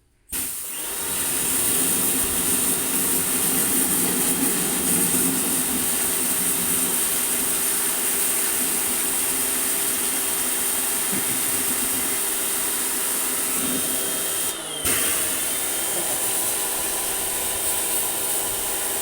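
An electric motor-driven machine switches on suddenly and runs at a steady pitch. About fifteen seconds in it falters for a moment, its pitch sagging, then picks back up.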